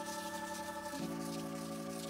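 Background music: held synth chords that change about a second in.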